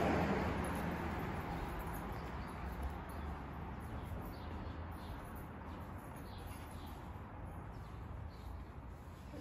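Street ambience: the noise of a passing vehicle dies away over the first couple of seconds, leaving a low steady background hum with faint bird chirps.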